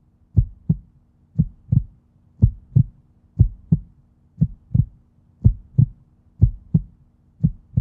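Heartbeat sound effect: paired low thumps in a lub-dub rhythm, about one pair a second, over a faint steady hum.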